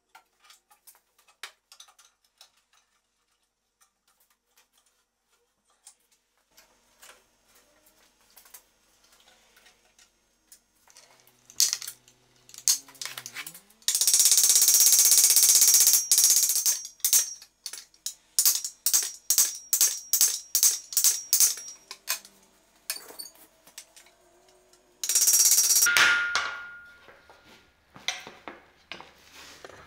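Light clicks and knocks of hand fitting work, then a power drill working into a wooden seat back. It runs in one long loud burst with a steady high whine, then in a rapid string of short trigger bursts, and once more in a long burst near the end.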